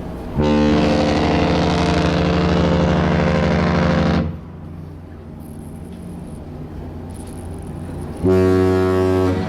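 Cruise ship horns exchanging blasts. One long, deep blast lasts about four seconds. A few seconds later a shorter blast follows at a different pitch.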